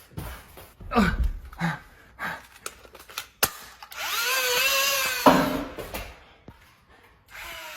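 Motorized Nerf blaster's flywheels whining for about a second, after a few sharp clicks, and stopping with a knock.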